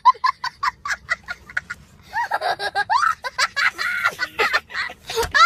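A young boy laughing hard, first in quick short bursts, then in longer rising and falling whoops.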